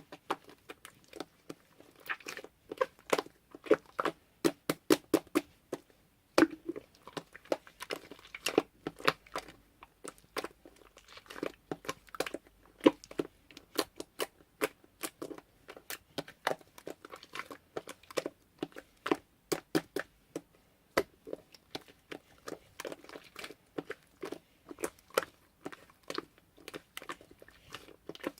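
Slime being squished and poked by hand, making a continuous run of short wet pops and clicks, several a second.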